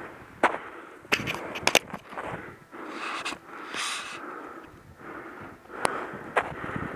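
Footsteps crunching through snow, with irregular sharp crackles and rustling of clothing close to the microphone.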